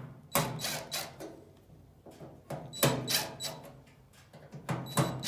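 Battery-powered impact driver with a Phillips bit running in three short bursts of rapid hammering clicks over a motor whine, loosening the screws of a pellet stove's top cover.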